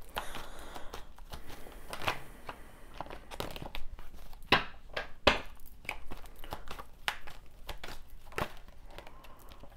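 A tarot deck being shuffled by hand: a continuous run of card edges sliding and slapping together, with a few sharper slaps about halfway through.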